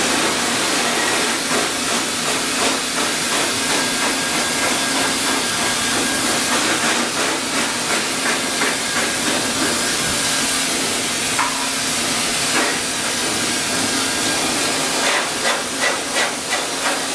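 High-velocity force dryer blowing a steady rush of air through its hose into a poodle's coat.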